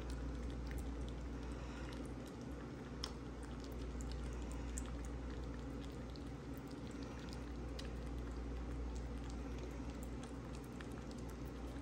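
A cat licking and chewing wet food from a small plastic cup: many small, irregular wet clicks and smacks, over a steady low hum.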